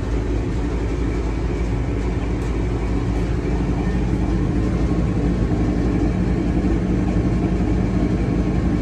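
Steady rumble and running noise of a Siemens Venture passenger rail car moving along the track, heard in the vestibule by the car-end door.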